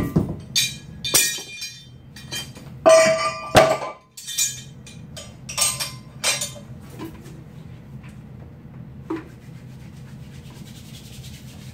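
Steel and iron gym hardware clanking and clinking as a 45 lb iron weight plate, a steel loading pin and a carabiner are put together for a hub lift. There are several separate metal strikes, the loudest ringing briefly about three seconds in.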